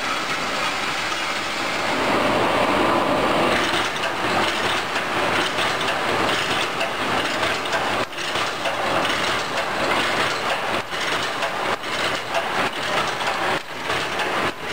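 Automatic wire mesh welding machine, fed with line wire and cross wire from coils, running and welding: a steady metallic clatter with sharp knocks about once a second.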